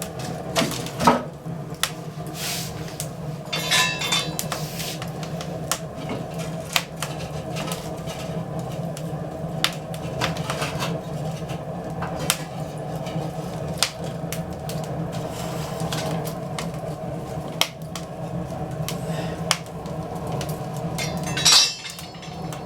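Fireplace fire of crate and pallet wood crackling with many sharp, irregular pops, and knocks of wood pieces being laid on it as it catches. A louder clatter comes near the end, over a steady low hum.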